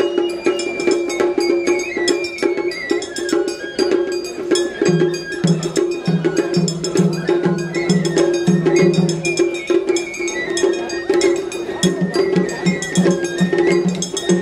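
Japanese festival hayashi music: a high bamboo-flute melody over steady clanging of a small hand gong, with low drum strokes joining about five seconds in.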